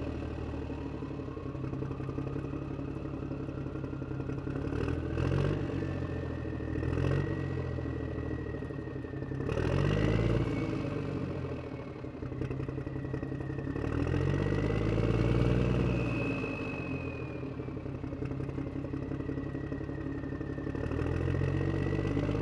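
Engine sound effect, as for a toy monster truck: a steady running engine that revs up and falls back about five times, with a thin high whine wavering over it.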